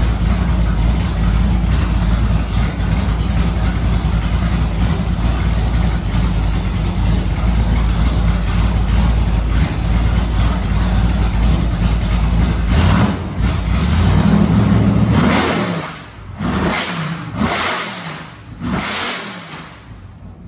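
Carbureted 406 small-block Chevy V8 running cold on open headers, a loud steady rumble just after its first start. About 13 seconds in it revs up, then drops away, with a few short surges that fade out near the end.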